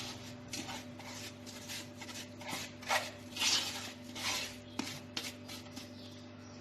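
A spoon scraping and stirring through granulated sugar and chopped apricots in a large bowl, in short irregular strokes, over a faint steady hum.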